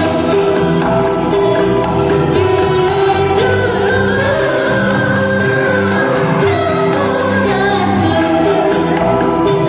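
Bamboo angklung ensemble playing a tune, with many held notes sounding together and a singing voice carrying the melody over them.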